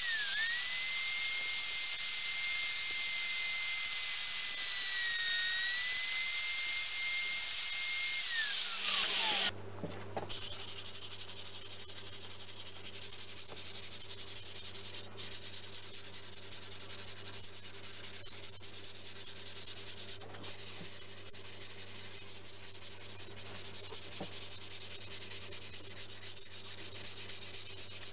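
A small electric router runs with a steady high whine, sagging slightly for a moment, then spins down about 9 seconds in. After that, sandpaper is rubbed by hand back and forth over a fibreboard panel, a steady scratchy rubbing.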